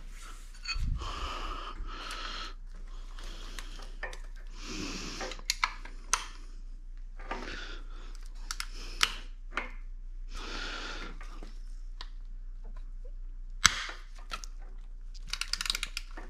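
Hand tools and engine parts being handled: scattered sharp clicks and light knocks with soft rustling, a quick run of clicks near the end, over a steady low electrical hum.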